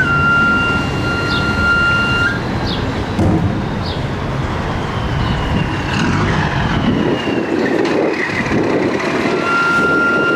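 Chirimía (reed shawm) playing long held nasal notes: one note is held for about two seconds at the start, and near the end the melody comes back and steps up in pitch. Under it is a steady low rumble.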